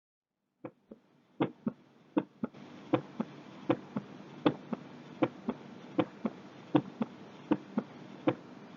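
Recorded heart sounds through a stethoscope: a steady lub-dub, each beat a pair of short thuds close together, at about eighty beats a minute, over a faint steady hiss.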